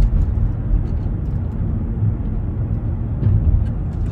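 Low, steady rumble of a Boeing 777 jet airliner flying overhead at a distance, one of its engines failing and trailing smoke and flames.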